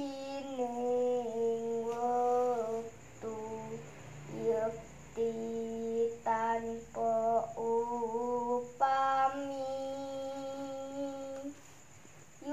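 A girl's unaccompanied solo voice singing Javanese macapat verse in long held notes with slow ornamental turns. There are several phrases with short breaths between them, and the last note is held for about two and a half seconds.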